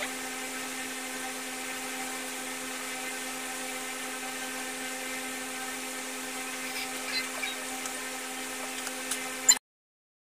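A steady electric whir and hum from a small motor, with a few light clicks shortly before it cuts off suddenly near the end.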